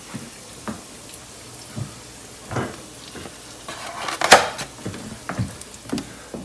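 Eggs sizzling in a nonstick frying pan: a faint steady hiss with scattered light knocks and clicks, the loudest a little past the middle.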